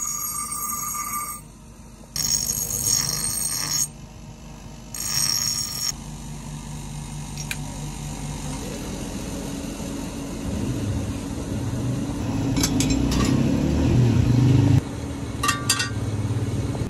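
Electric bench grinder grinding a steel ax head in three short passes, each a ringing, high-pitched screech of metal on the abrasive wheel. After that a lower, rough running sound builds up and cuts off suddenly near the end, with a few sharp clicks.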